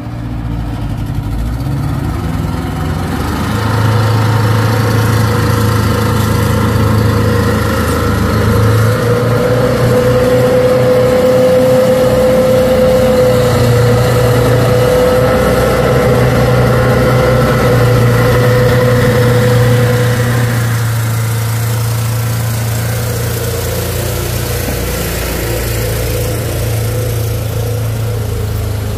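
Heavy truck engine running steadily, with a high steady whine over it that fades out about twenty seconds in.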